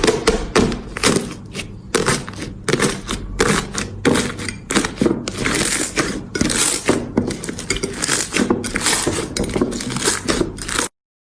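Slime being squeezed and worked by hand: a close, continuous run of sticky crackles, pops and squelches that cuts off abruptly shortly before the end.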